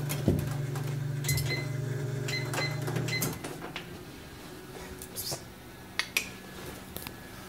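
Electric treadmill running with a steady motor hum, and several short electronic beeps from its control buttons as the speed is changed. A little over three seconds in, the hum drops away, and a few scattered knocks follow.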